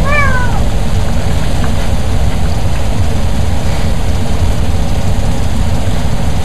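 A cat's short meow, rising then falling in pitch, right at the start, over a loud, steady, rumbling noise.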